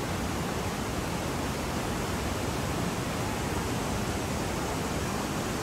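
Niagara Falls' falling water: a steady, tremendous noise, an even rush that never lets up.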